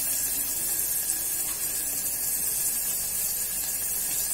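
Onions, green chillies and carrot pieces sizzling steadily in hot oil in an aluminium pressure cooker.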